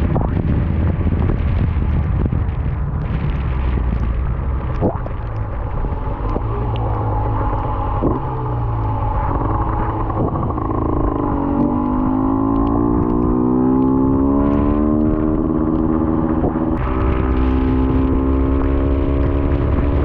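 Honda NSR two-stroke motorcycle engine running under heavy wind noise on the rider's microphone while riding in rain. About halfway through, the bike rolls through standing water. After that, the engine note climbs steadily as it accelerates, then holds.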